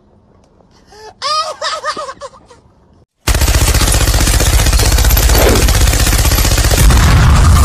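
Machine gun firing a long continuous burst of rapid automatic fire, starting suddenly about three seconds in and very loud.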